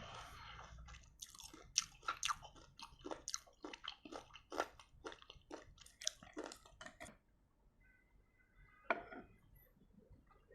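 A person chewing crunchy pieces of lime rujak, dense crisp crackling bites that stop about seven seconds in, followed by one more sharp click near the end.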